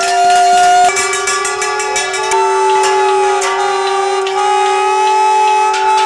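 Protest noisemakers: several loud horn-like tones sound at once and hold steady, their pitches shifting as one drops out and another comes in. Quick clattering sounds over them about a second in.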